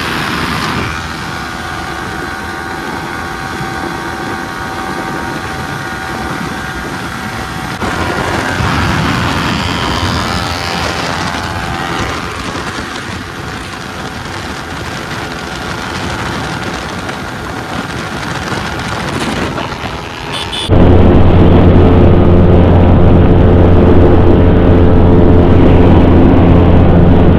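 Yamaha R15 sport bikes' 155 cc single-cylinder engines running flat out at top speed, with heavy wind rush over the microphone and the engine note climbing and falling under it. About 21 seconds in it cuts suddenly to a much louder, steady low engine hum.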